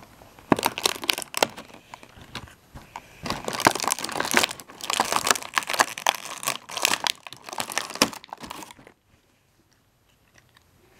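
Clear plastic toy packaging crinkling and crackling in quick clusters as figures are worked out of it, stopping abruptly about nine seconds in.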